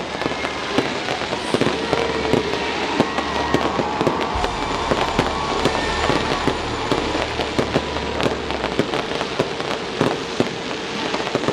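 Fireworks going off in a dense, continuous string of pops, bangs and crackles.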